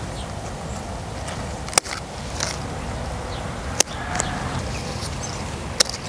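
Scissors snipping leaves off an apple branch: three sharp snips about two seconds apart, over a steady outdoor hiss.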